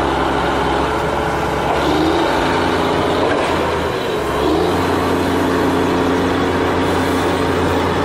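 Tractor engine running steadily, with a constant low hum under a dense mechanical noise.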